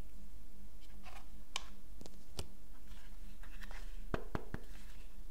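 Hands handling a coiled USB-C cable and cardboard phone packaging: light rustles and sharp taps and clicks, with a quick run of three taps toward the end. A low steady hum sits underneath.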